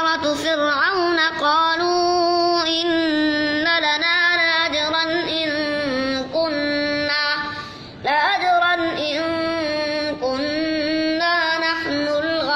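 A boy reciting the Quran in a high, melodic chanting voice, drawing out long held notes with ornamented turns between them. He breaks off for a breath about eight seconds in, then resumes.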